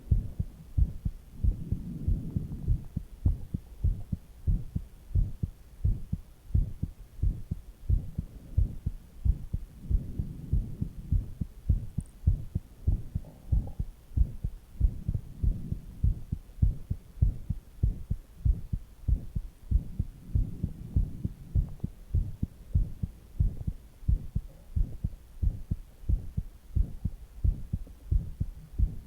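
A person's resting heartbeat: a steady lub-dub of soft low thumps. Now and then it is joined by low stomach gurgles.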